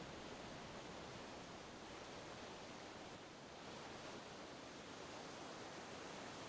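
Aircraft cabin noise: a steady, faint rushing hiss with no distinct tones or knocks.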